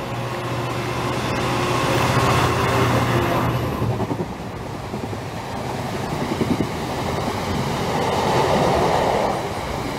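Diesel freight train passing close below: the locomotive's steady engine note ends abruptly about three and a half seconds in as it goes under the bridge, then the train of open box wagons rumbles and clatters past.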